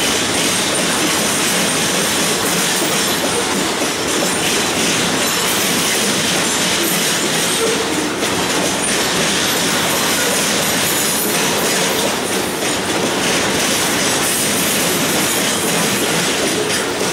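Flatcars of a loaded welded-rail train rolling past close by: a steady, unbroken noise of steel wheels running on the track.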